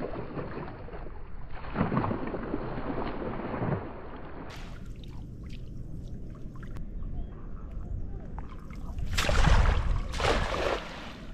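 A weighted cast net splashing down on shallow water, twice: once about two seconds in and again, louder, about nine seconds in, with water sloshing around a wading fisherman between the casts.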